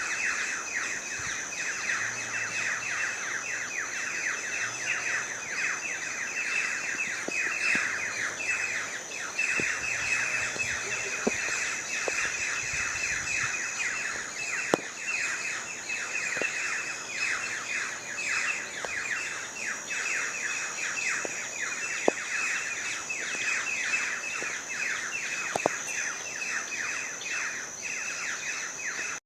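Dense, continuous chorus of many birds chirping in rapid short falling notes, over a steady high-pitched tone, with a few faint clicks.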